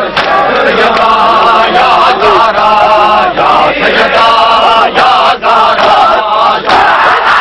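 Loud group of men chanting a mourning chant together, in held, repeated phrases, cut by sharp slaps every second or so from hands striking bare chests in matam.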